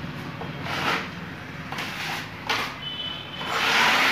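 A flat metal spreading blade scraping thick, rough texture compound across a wall in a few short strokes, then one longer, louder stroke near the end.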